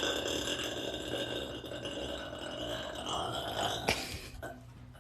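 A person's long, drawn-out burp that fades away over the first four seconds, followed by a short click.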